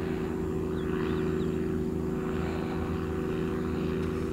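Small ultralight aircraft with a pusher propeller mounted above the wing, flying overhead; its engine and propeller drone steadily at an unchanging pitch.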